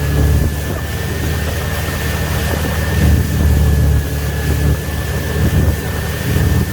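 Wakesurf boat's engine running steadily, with a constant thin high tone over it.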